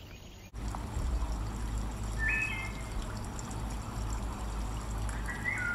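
Steady running water like a trickling stream, starting abruptly about half a second in, with two short high whistled calls, one about two seconds in and one near the end.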